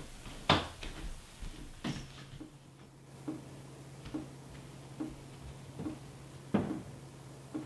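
Soft, regular ticking, a little faster than once a second, over a low steady hum. A few louder knocks and thuds come near the start and again late on.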